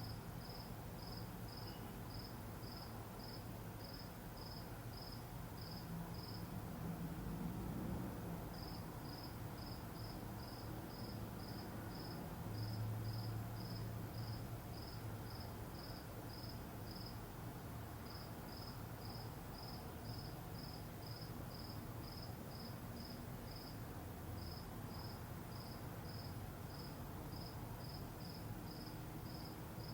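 A cricket chirping in a steady rhythm, about two high chirps a second, pausing for a couple of seconds near the start and briefly twice later, over a low steady rumble.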